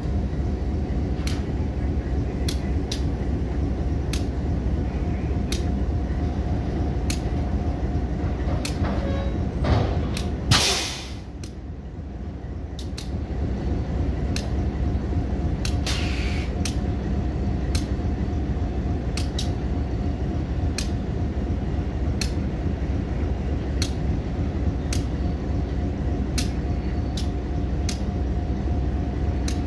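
Diesel locomotive idling steadily close by, with sharp clicks every second or so as freight cars roll away over the track. A loud hiss of released air comes about ten seconds in, and a shorter, softer one around sixteen seconds.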